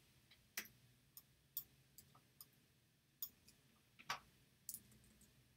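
Faint, irregular clicking from operating a computer while drawing digitally in Photoshop: about ten short, sharp clicks spaced unevenly.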